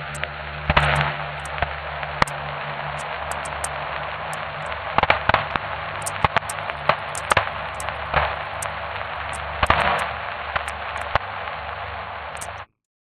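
Digital glitch sound effect: steady static hiss over a low hum, broken by irregular sharp clicks and crackling pops, cutting off abruptly near the end.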